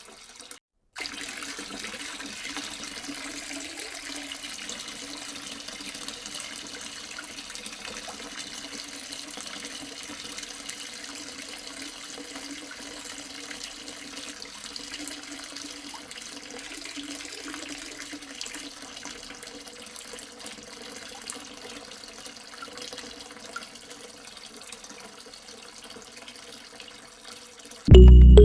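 Water running in a steady stream, with a faint steady hum under it. It starts after a short break about a second in.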